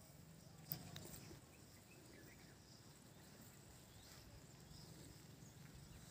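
Near silence, with a single brief faint click under a second in.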